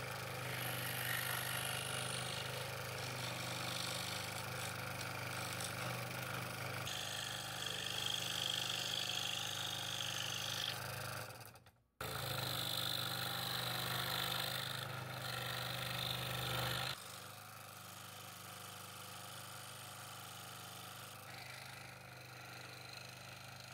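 Scroll saw running and cutting fretwork in 3/8-inch oak with a No. 5 blade: a steady motor hum with the hiss of the reciprocating blade through the wood. It breaks off for a moment about twelve seconds in and runs quieter over the last several seconds.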